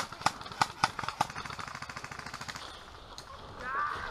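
Airsoft rifle gunfire: a few sharp single shots about a third of a second apart, then a fast rattling full-auto burst lasting about two seconds.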